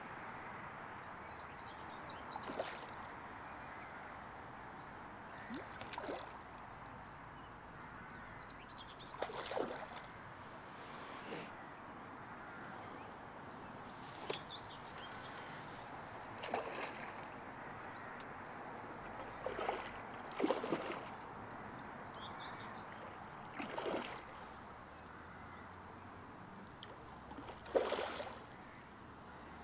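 Water splashing and sloshing in short bursts, about ten of them, spread irregularly through the stretch: a large hooked fish thrashing at the surface as it is played and brought to the net. A few faint bird chirps come between the splashes.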